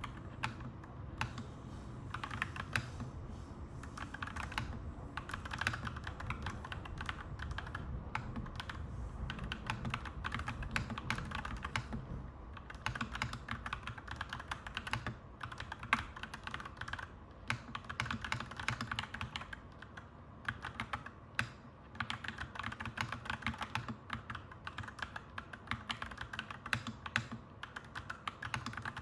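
Clacky mechanical keyboard being typed on steadily in irregular rapid keystrokes. A low rumble runs underneath and fades out about twelve seconds in.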